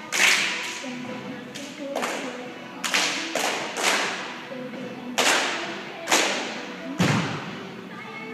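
A cheerleading squad clapping and stomping in unison, about eight sharp hits at uneven spacing, each echoing around a large gymnasium. The hit about seven seconds in is heavier and deeper, like a stomp on the wooden floor.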